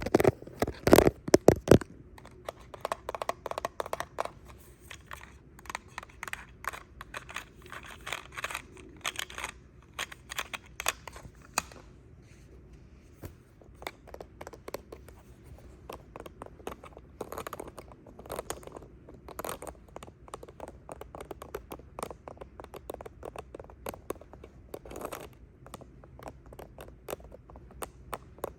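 Fingernails tapping and scratching on a hard surface close to the microphone: a rapid, irregular run of small clicks and scrapes, loudest in the first two seconds and sparser for a few seconds around the middle.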